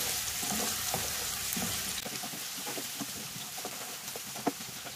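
Potato pieces shallow-frying in hot oil in a non-stick pan: a steady sizzle with scattered small pops and clicks, slowly getting quieter.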